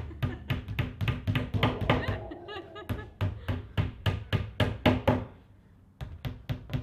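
Hammers tapping small nails through a wardrobe's thin back panel into its frame: a fast, uneven run of sharp knocks, a pause about five seconds in, then a few more knocks near the end.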